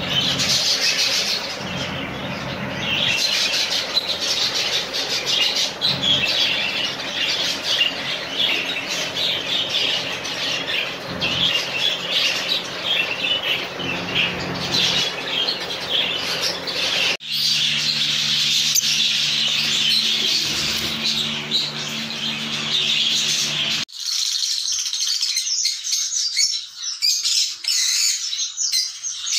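Budgerigars chattering and warbling, many fast calls overlapping, over a low steady hum. About 24 s in the hum drops out at a cut, and lovebirds' sharper, higher chirps and squawks take over.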